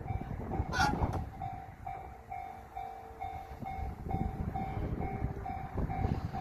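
Railway level-crossing alarm sounding the JR standard electronic bell, ringing about twice a second, over the rumble of a passing train. A brief sharp noise is heard about a second in.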